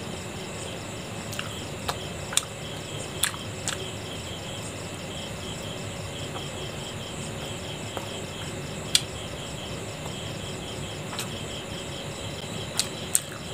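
Insects chirping steadily in a fast, even pulsing pattern, with a few sharp clicks of chewing and mouth sounds as momos are eaten.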